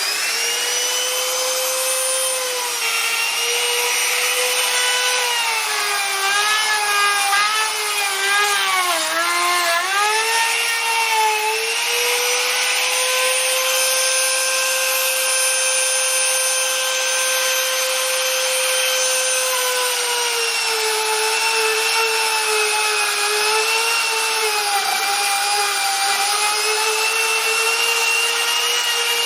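Electric router spinning up to a steady high whine and cutting timber. Its pitch sags again and again as the bit bites into the wood, most deeply between about five and eleven seconds in and more gently in the second half.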